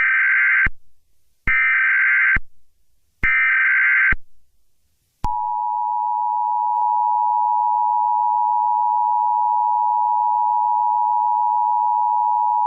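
Emergency Alert System signal: three short bursts of the SAME header's digital data tones, about a second each, then the EAS attention signal starting about five seconds in, a steady two-tone beep.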